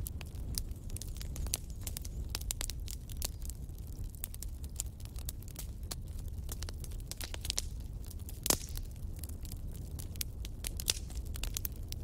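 Fire burning in a fireplace, crackling and snapping in dense, irregular pops over a steady low rumble, with one louder pop about eight and a half seconds in.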